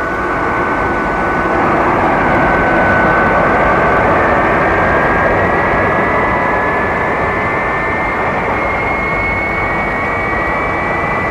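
Jet airliner engines running: a steady roar with a high whine that rises slowly in pitch throughout.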